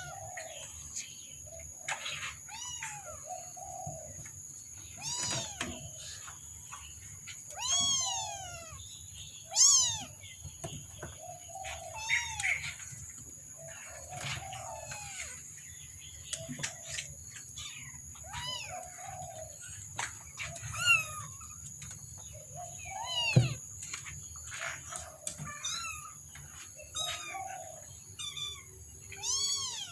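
Kittens mewing over and over in short high calls that rise and fall in pitch, with some lower mews among them, over a steady high whine.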